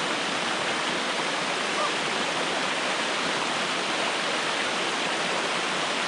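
Small waterfall sheeting down a sloping rock slab: a steady, even rush of water.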